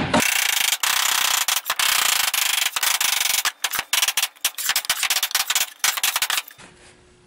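Wooden hive box joints being tapped and worked together with a dead blow hammer: a continuous harsh, scratchy rubbing noise with many sharp clicks, stopping abruptly about six and a half seconds in.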